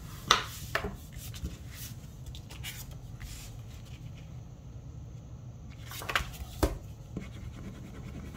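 Paper and cardstock handled on a wooden craft table: a bone folder rubbed along the cardstock and set down, with scattered light taps, rustles and scrapes of paper, the loudest tap just after the start.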